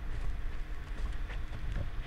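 Footsteps crunching on ash and burned ground, a few irregular steps, over a steady low wind rumble on the microphone.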